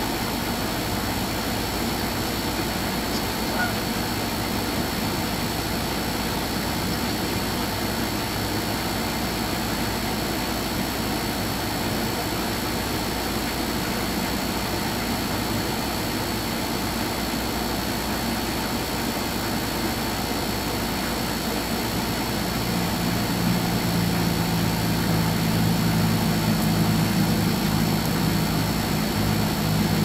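Steady engine-like rumble and hiss. From about two-thirds of the way through, a low droning engine hum swells in and eases off near the end.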